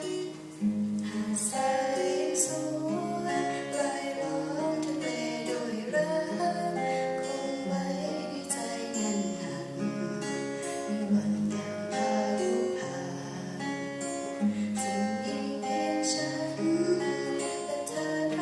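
Classical guitar played fingerstyle: a melody over a moving bass line.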